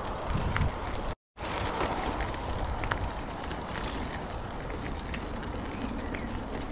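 Wind noise on the microphone with rumble from a bicycle being ridden, broken by a short dropout to silence about a second in.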